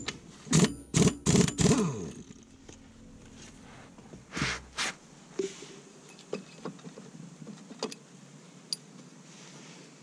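Impact wrench fired in about four short bursts, each ending in a falling whine, to undo the scooter's variator nut. Another burst follows a couple of seconds later, then light metallic clicks as the variator parts are handled.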